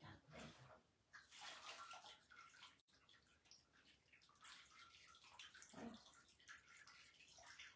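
Faint, irregular splashing and trickling of water as a Shiva lingam is bathed and rinsed by hand during abhishekam.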